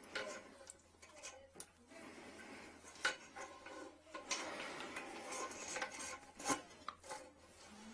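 A plumber's drain cable rubbing and scraping against a porcelain toilet bowl as it is worked into the trap to hook a lodged toothbrush, with a few sharp clicks of the cable knocking on the porcelain.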